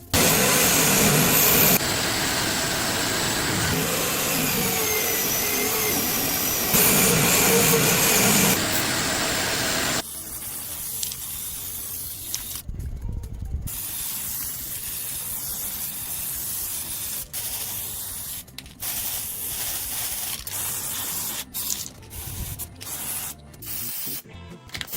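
Loud, steady hiss of a compressed-air spray, heard in several abruptly cut segments. After about ten seconds it drops to a quieter hiss broken by brief pauses.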